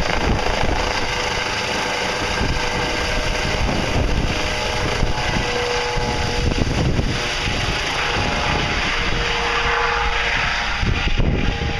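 Medevac helicopter flying low overhead and moving away, its rotor beat steady over a constant whine.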